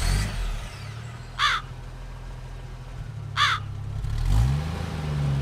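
A crow cawing twice, two short harsh calls about two seconds apart, over a low steady drone that rises briefly in pitch near the end.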